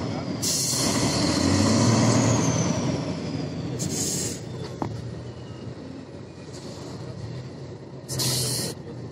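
Trial truck's engine running hard as it climbs through a muddy pit, easing off after the first couple of seconds. Short hisses of air break in about half a second in, around four seconds and near the end.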